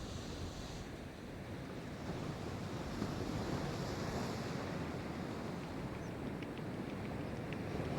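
Pacific Ocean surf breaking and washing ashore: a steady rush of water that swells a little about three seconds in.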